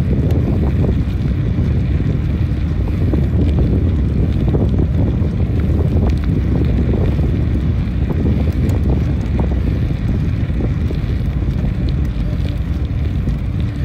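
Steady low wind rumble on the microphone of a bicycle-mounted camera moving at about 14 mph, with the road bike's tyres rolling on asphalt underneath.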